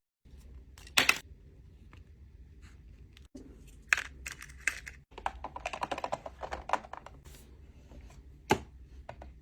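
Small plastic miniatures clicking and tapping as they are handled, with a quick run of rapid clicks about halfway through.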